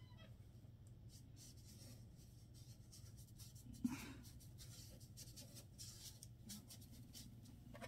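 Faint scratching of a paintbrush stroking across paper over a steady low hum, with a soft knock about four seconds in.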